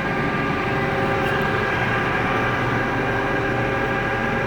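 Steady machinery hum with several steady whining tones and no change in level.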